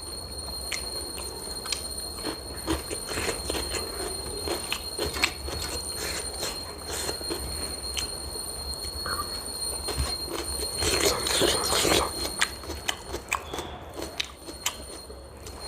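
Close-miked chewing and mouth clicks of someone eating, with a steady faint high whine underneath.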